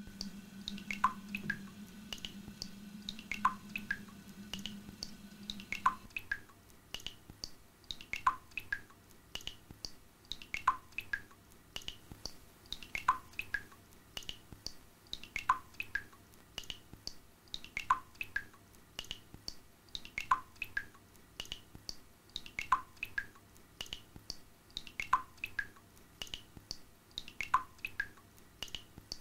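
Musique concrète soundtrack: a looped pattern of short, pitched, drip-like plinks at several different pitches, the strongest recurring about every two and a half seconds. A low hum runs beneath for the first six seconds or so, then stops.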